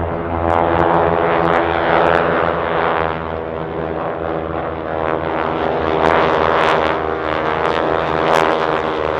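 Four North American Harvard trainers' nine-cylinder radial engines and propellers droning together as the formation passes, the sound swelling and easing in waves.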